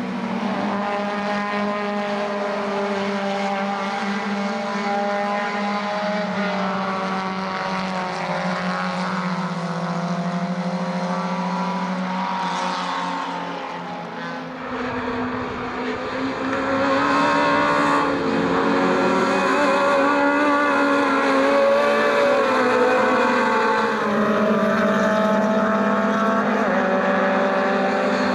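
A pack of 1300 cc four-cylinder touring cars (Ladas, Zastava, Samara, Škoda Favorit) racing by, several engines at once revving up and down through gear changes. The engines get louder about halfway through.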